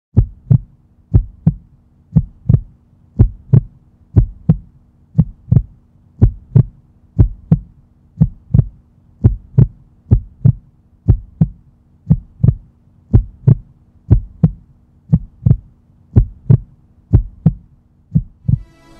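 Heartbeat sound effect: a steady lub-dub double thump about once a second over a faint low hum, with music coming in near the end.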